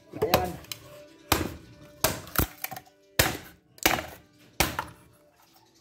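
Machete blade chopping into an upright wooden stick in an edge test: about seven sharp, hard strikes at irregular intervals, some followed by a brief ringing tone.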